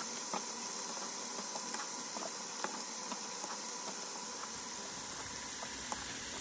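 Low, steady sizzle of onion, garlic and zucchini flesh frying in a pan, with faint knife taps on a plastic cutting board as cherry tomatoes are halved.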